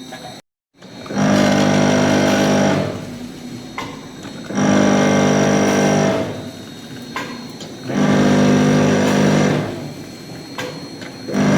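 Granulated palm sugar packaging machine working in cycles: a motor hum starts and stops about every three seconds, each run lasting about a second and a half, with lighter clicks between runs. The sound drops out briefly just under a second in.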